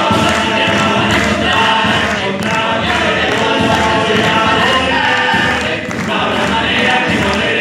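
Choir singing, many voices together in harmony without a break.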